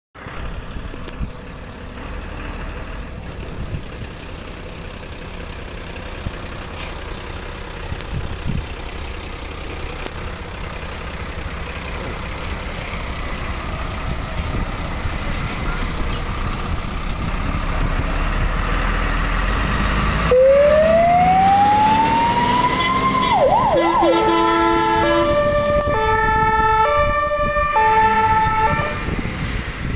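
MAN LE280 heavy fire engine's diesel engine running and growing louder as it pulls out and passes. About 20 seconds in its siren winds up in a rising wail, warbles briefly, then its horns sound a rapid run of alternating notes at several pitches.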